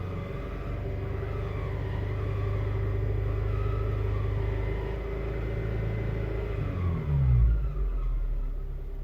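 2007 Honda Civic Si running, its engine note steady with a thin high-pitched whine over it: the transmission/clutch whining noise the owner is chasing. About seven seconds in, the engine note drops quickly with a loud low thump, then settles to a lower steady note.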